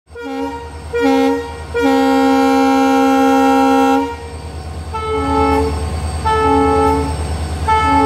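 Indian Railways locomotive horn sounding two sequences of two short blasts and one long blast, the second sequence a little lower in pitch. A steady low rumble runs underneath.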